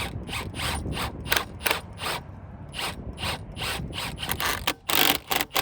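Ratchet wrench clicking in steady back-and-forth strokes, about three or four clicks a second, as the strut's top nut is tightened down onto a new spring, then a louder, quicker run of clicks near the end.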